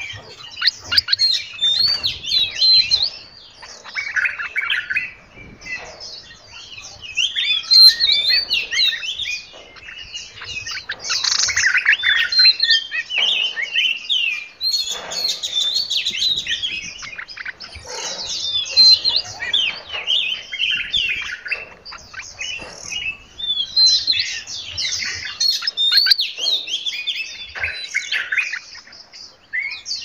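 Several caged songbirds singing and chirping together, their whistled phrases and chirps overlapping in dense bursts with short lulls between.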